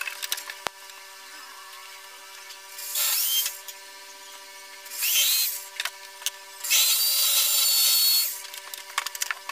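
Corded electric drill run in three short bursts against the ceiling board, the last and longest about a second and a half; the motor whine rises as it spins up in the second burst. Light handling clicks and knocks come before and after.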